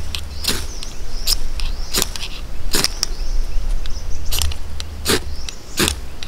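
A flint fire-striker being struck over and over to throw sparks onto a tinder bundle while lighting a fire. There are about eight sharp, scraping strikes, roughly one every three-quarters of a second, with a pause of over a second in the middle.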